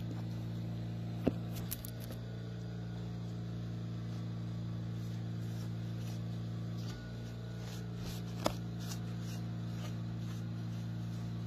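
A steady low hum with several even pitched layers, broken by a faint click about a second in and another a little after eight seconds.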